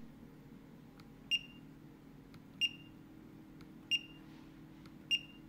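Fimi X8 SE drone remote controller beeping: four short, high beeps, evenly spaced about one every 1.3 seconds, each preceded by a faint tick, over a faint steady low hum.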